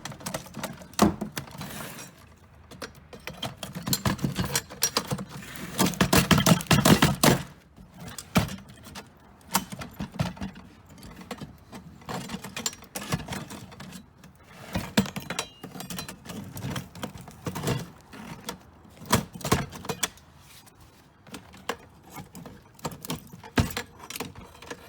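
Metal clanking, knocking and rattling as a payphone's steel housing is worked open with tools, with a denser stretch of scraping and rattling a few seconds in.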